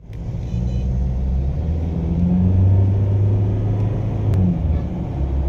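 Ford Ranger's 2.2-litre diesel engine running after its no-start was cured, a steady low hum that swells briefly in the middle and settles again.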